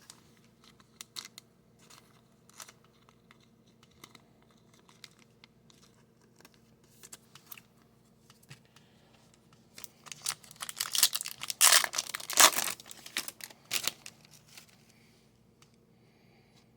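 A hockey card pack wrapper being torn open and crinkled, a dense run of loud crackles about ten seconds in that lasts some five seconds. Before it, light scattered clicks of cards being handled.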